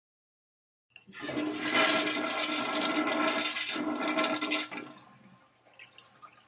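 Toilet flushing: a click about a second in, then a rush of water that dies away over the last couple of seconds.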